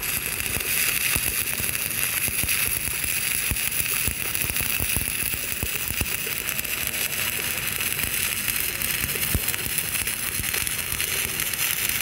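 Shielded metal arc (stick) welding with a 2.6 mm LB-52 (E7016) low-hydrogen electrode at about 70–80 amps on a steel pipe: a steady arc crackle and sputter.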